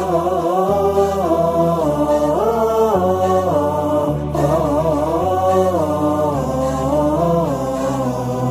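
Instrumental-style interlude of an Arabic Ramadan nasheed: a wordless chanted vocal melody over low held bass notes that step to a new pitch about once a second.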